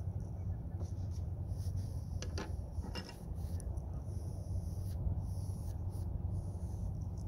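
Oil-paint brush scratching over canvas in short, irregular strokes, over a steady low rumble.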